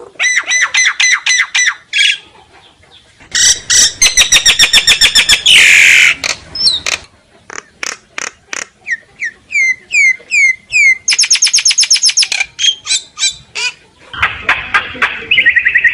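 Common myna singing its flock-calling song: a varied run of rapid repeated notes and harsh rattles, a rough squawk about six seconds in, then a string of short down-slurred whistles and more quick chattering notes, with short pauses between phrases.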